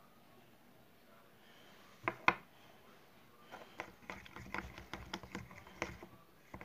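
A small cup of homemade glue slime being handled: two sharp knocks about two seconds in, then a run of quick small clicks and crackles.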